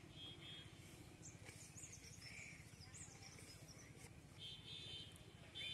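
Faint birdsong: small birds chirping in quick high notes, with a short buzzy trill heard three times, over a low steady background noise.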